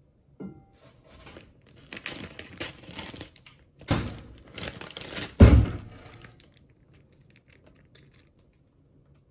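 Plastic packaging of a ready-made oden kit crinkling as it is handled and torn open, with two dull thumps about four and five and a half seconds in, the second the loudest.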